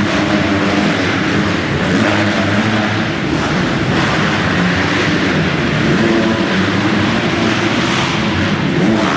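Motocross bike engines running and revving, several overlapping engine notes rising and falling over a steady din.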